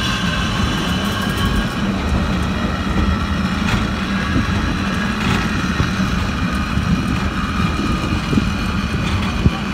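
Water-balanced cliff railway running, its car moving away down the track: a steady low rumble with a held, many-toned mechanical whine over it. A couple of faint clicks come midway and a sharp knock near the end.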